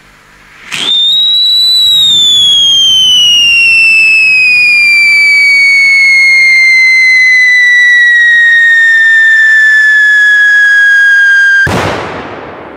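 Whistling ground fountain firework: a single shrill whistle that starts abruptly, holds loud for about eleven seconds and slides slowly down in pitch while the tube sprays sparks, then ends in a sharp bang.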